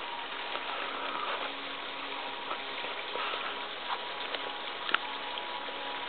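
Steady rush of a small waterfall splashing over a rock ledge, with a few short snaps of footsteps and twigs in the brush now and then.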